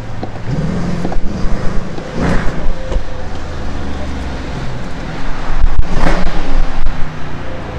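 Car engine revving hard in repeated surges, heard from inside the cabin, loudest about two seconds in and again about six seconds in.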